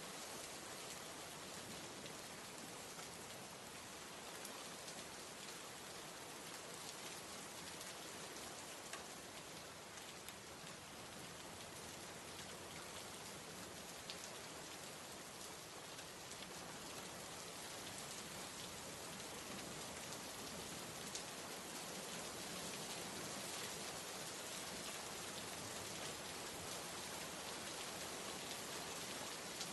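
Steady rain ambience: an even hiss of falling rain with scattered small drop ticks, growing slightly louder in the last third.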